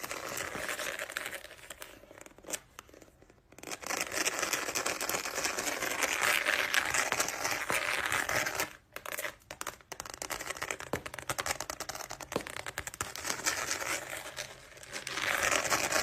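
A wallet handled close to the microphone as an ASMR trigger: crinkly, tearing noises in long stretches broken by a few short pauses.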